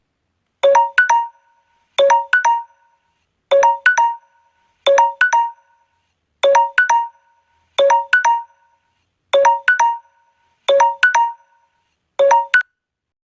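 Samsung Galaxy 'Time Up' default timer alarm tone (Android 7–8) going off: a pair of short pitched notes repeated about every one and a half seconds, nine times.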